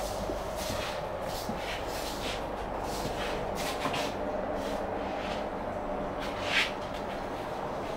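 Steady hum inside an Indian Railways Humsafar Express sleeper coach, with soft shuffling and rustling as someone walks down the aisle, and one brief louder hiss about six and a half seconds in.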